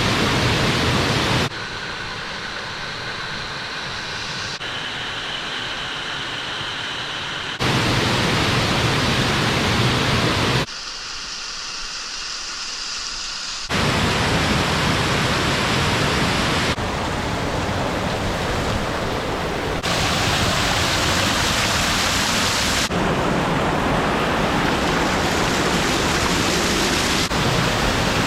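Waterfall: steady rushing of falling water, heard across a run of short clips that cut abruptly about every three seconds. Some clips are louder and fuller than others.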